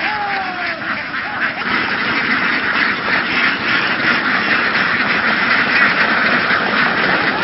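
A large flock of domestic laying ducks quacking all together, a dense, continuous chorus of many overlapping calls.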